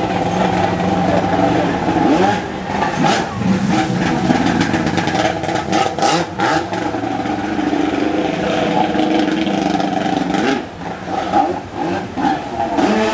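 Stand-up jet ski engine revving up and down hard as it spins on the water, with splashes of spray at times. The revs drop about ten seconds in and rise again near the end.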